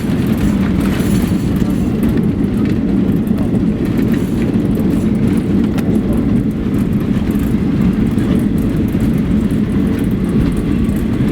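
Steady low rumble inside the cabin of a Boeing 737-800 on the ground after landing, the jet's engine and wheel noise carrying through the rear cabin.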